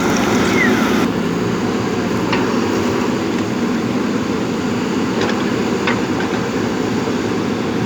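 JCB backhoe loader's diesel engine running steadily under work, with three short sharp knocks from the machine.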